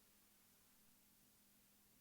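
Near silence: the sound track has dropped out, leaving only a faint steady hum.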